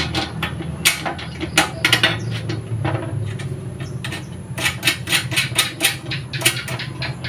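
Steel parts of a used-oil stove clinking and knocking together as they are fitted by hand: a series of sharp metal taps, thickest in the second half. A steady low hum runs underneath.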